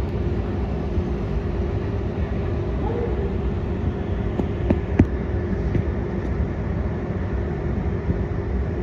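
Steady engine rumble with a constant low hum, broken by a few sharp clicks about halfway through.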